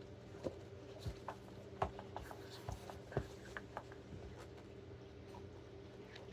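Faint light taps and clicks of a cardboard box and its packed contents being handled, a few louder knocks among them, over a steady low hum.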